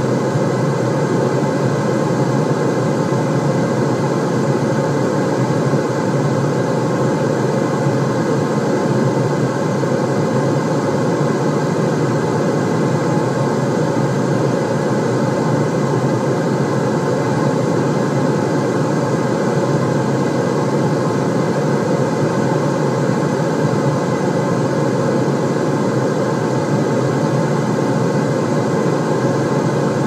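Steady white-noise track: a constant, deep rushing hiss weighted toward the low end, with no change or break.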